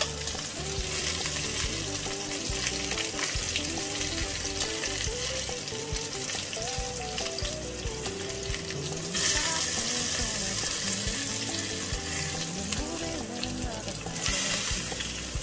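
Flour-dusted oxtail pieces sizzling as they sear in hot oil in an enameled cast-iron pot, with occasional clicks of metal tongs turning them; the sizzle gets louder about nine seconds in.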